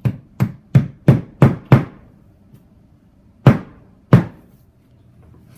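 Hammer striking at drilled holes in a wall: six quick blows, about three a second, over the first two seconds, then two harder single blows about three and a half and four seconds in.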